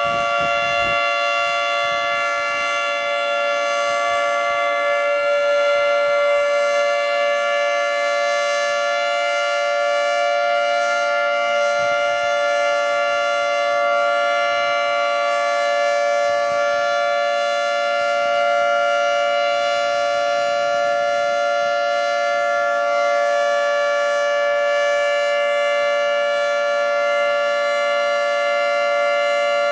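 Federal Signal 2T22 outdoor warning siren sounding a loud, steady two-note chord at full pitch during its test.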